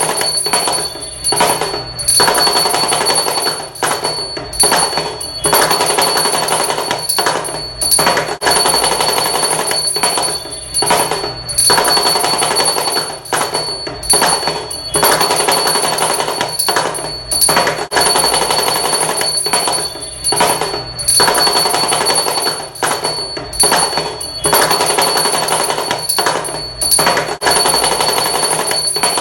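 Damru, the small two-headed hourglass hand drum, rattled rapidly in phrases of one to three seconds with short breaks between them. A steady high ringing tone runs underneath.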